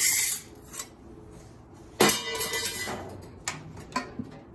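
Parts of a stripped microwave oven being handled: a short clatter, then about two seconds in a sudden scraping rattle that dies away, followed by a few light knocks.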